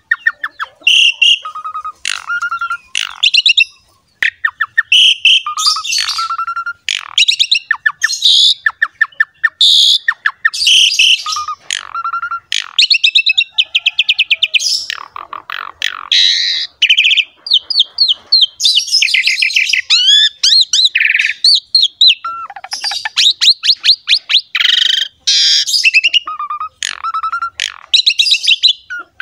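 Javan pied starling (jalak suren) in full, energetic song: a continuous, loud, varied stream of clear whistles, fast rattling trills and harsh chattering notes with only brief pauses.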